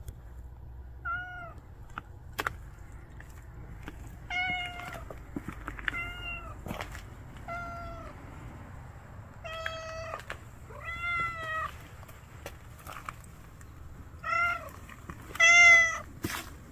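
A calico cat meowing about eight times, short calls that rise and fall in pitch, spaced a second or more apart, the loudest near the end.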